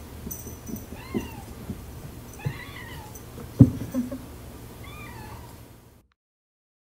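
Ragdoll kitten meowing three times, short calls that rise and fall in pitch, with light knocks and one loud thump about halfway through. The sound cuts off abruptly about a second before the end.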